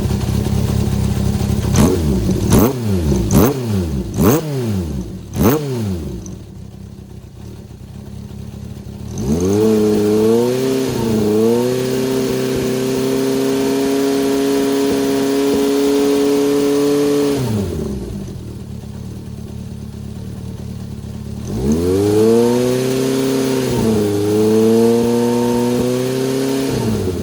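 Honda CB750 Four's inline-four engine through a Yoshimura Straight Cyclone short exhaust with a baffle fitted, being revved in place. First it gives about five quick throttle blips. Then the revs are raised and held steady for about eight seconds before dropping back to idle, and near the end they are raised and held again.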